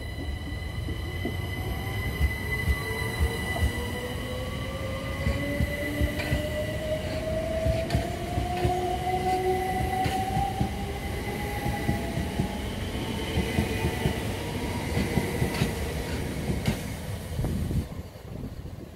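Southern Class 377 Electrostar electric multiple unit accelerating away, its traction motors giving a whine that rises slowly in pitch over a steady rumble. Several sharp wheel knocks come as it runs over the track, and the sound drops away abruptly near the end.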